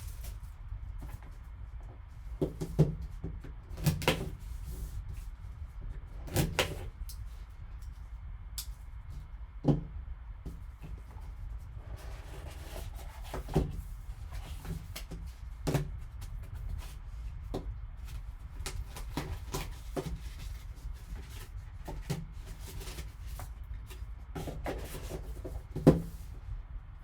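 Scattered knocks and taps of a sealed trading-card box and other items being handled on a tabletop, over a low steady hum.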